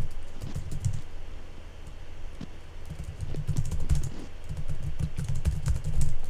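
Typing on a computer keyboard in quick runs of keystrokes, breaking off after about a second and starting again about three seconds in.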